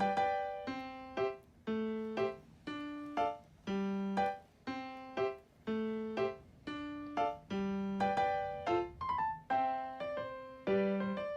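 Background piano music: a light melody of separate plucked-sounding keyboard notes at a steady, bouncy pace.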